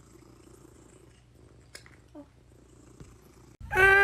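Domestic cat purring softly. Near the end, after a cut, a dog starts howling loudly in a long held note that drops in pitch as it ends.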